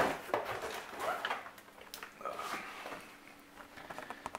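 Faint scattered knocks and rustles of handling and movement as someone reaches for a box, with a couple of brief high notes in between.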